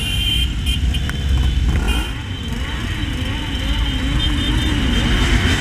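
Engines of a pack of motorcycles, among them the Honda CB600F Hornet being ridden, running through city traffic, with heavy wind rumble on the bike-mounted camera's microphone. A wavering pitch joins in about halfway through.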